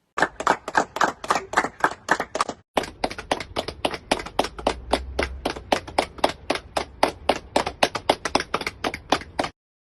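A rapid, even run of sharp clicks, about five or six a second, with a short break about two and a half seconds in.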